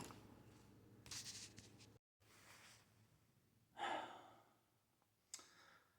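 Near silence, broken by a man's faint breath about a second in and a short sigh about four seconds in, with a tiny click shortly after.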